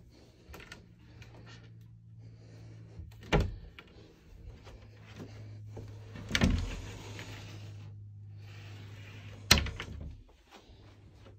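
A small hinged closet door being opened by hand: three sharp knocks and clicks from the knob, latch and door, about three seconds apart, with a rustling stretch after the second.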